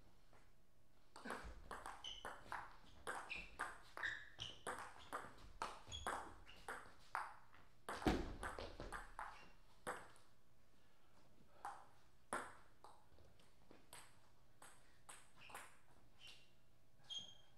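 Table tennis rally: the ball clicking back and forth off the paddles and the Donic table, about two to three hits a second, with one heavier hit about eight seconds in. The rally ends around ten seconds in, followed by a few scattered single ball bounces.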